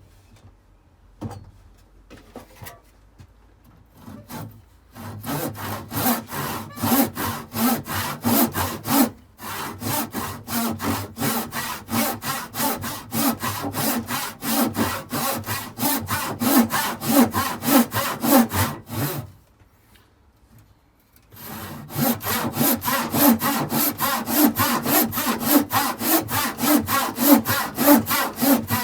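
Handsaw ripping a square timber along the grain, with steady, rapid back-and-forth strokes. The sawing starts about four seconds in, breaks off for a moment, stops for about two seconds near the two-thirds mark, then resumes.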